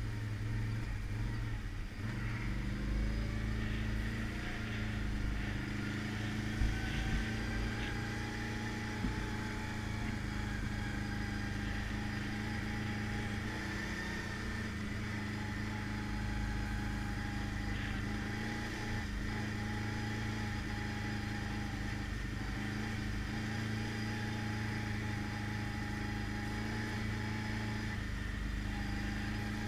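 ATV engine running steadily under way on a rocky dirt trail, its note rising and falling slightly. There are a few short thumps in the first ten seconds or so.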